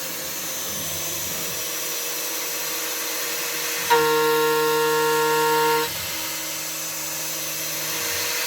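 A DIY CNC router's spindle drives a three-flute carbide end mill through steel with a steady hissing cutting noise. About four seconds in, a loud, pitched squeal with several overtones sets in as the cutter engages, holds for about two seconds, then drops away.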